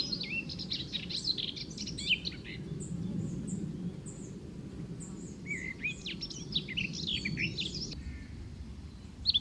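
Small birds chirping in quick, busy twitters, in two spells with a few seconds' lull between them, over a low steady background rumble.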